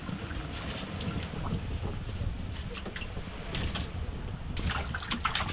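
Steady low rumble of wind on the microphone on a small fishing boat, with scattered clicks and knocks from handling gear on board, more of them near the end.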